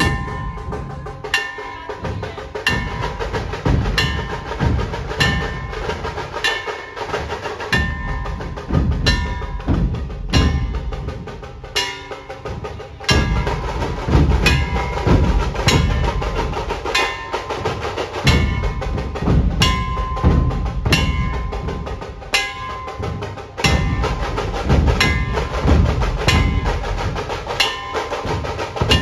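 Dhol-tasha pathak playing in procession: many large barrel-shaped dhol drums beaten in a loud, steady rhythm, with sharp accented strikes about every second and a half and a high ringing tone over the drumming. The drumming gets louder about halfway through.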